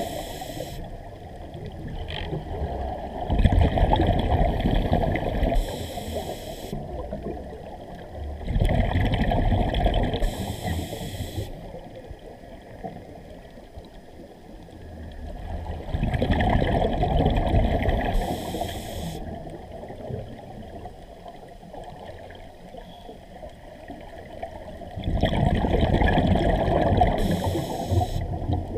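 A scuba diver's regulator breathing underwater: four bursts of exhaled bubbles gurgling, about seven to eight seconds apart, quieter between breaths.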